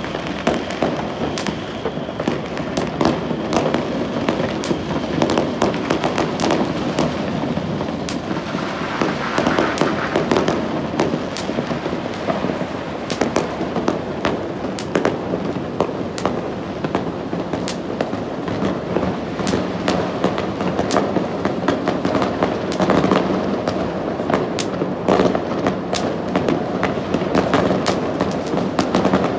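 Many fireworks going off at once: a continuous din of overlapping bangs and crackles, with dozens of sharp reports spread throughout.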